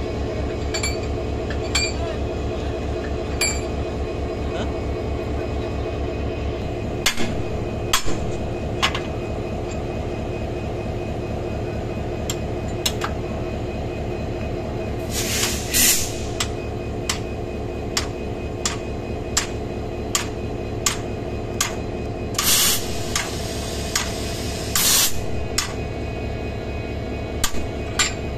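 Diesel locomotive engine idling steadily close by, while a hammer strikes a steel railway coupler in sharp metal clinks and knocks, sparse at first and then about one or two a second, as the coach is coupled to the locomotive. Three short bursts of hiss cut through in the second half.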